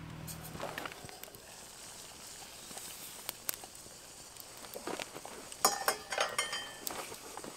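Wood campfire burning under a pot of water, with scattered sharp pops and crackles over a faint hiss. A denser run of louder crackles and rustling comes about five to six seconds in. A low hum cuts off about a second in.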